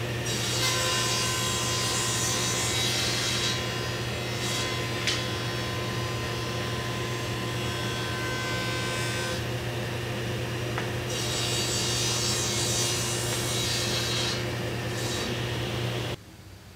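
Stationary woodshop machines milling red oak boards: a steady motor hum with two long stretches of wood being cut, one near the start and one in the second half, a few seconds each. The sound cuts off abruptly near the end.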